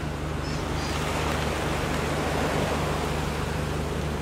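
Gust of wind rushing past, swelling through the middle and easing off, over a steady low hum.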